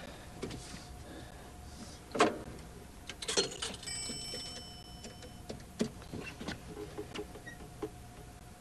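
Clicks and knocks of a payphone being handled and dialed, with a short metallic ringing about four seconds in.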